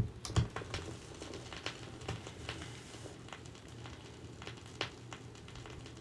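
Stylus set down on a spinning vinyl record: a couple of thumps at the very start, then scattered crackles and pops of the silent lead-in groove over a faint low hum.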